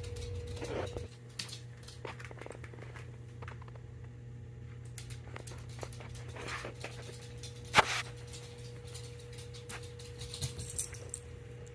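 Quiet room with a steady electric hum, scattered soft rustles and light clicks, and one sharper click about eight seconds in.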